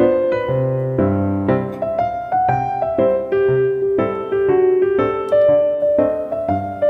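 Background piano music: a melody of held notes over a repeating bass line.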